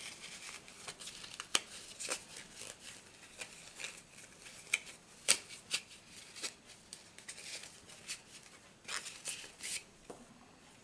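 Hands rummaging through small packaging and paper: irregular rustling and crinkling with sharp clicks, the loudest about a second and a half in and again about five seconds in.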